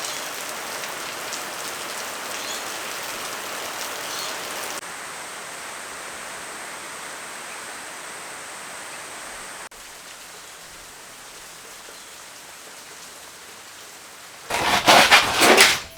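Steady rain-like hiss with no distinct tones, dropping suddenly in level twice, then a short, much louder burst of noise near the end.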